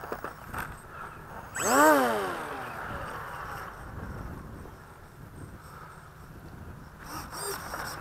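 The electric motor and propeller of an FMS Dragonfly RC plane given a short burst of throttle about two seconds in, the whine rising and then falling away as it spins down. Near the end a brief servo buzz as the control surfaces are checked after the crash.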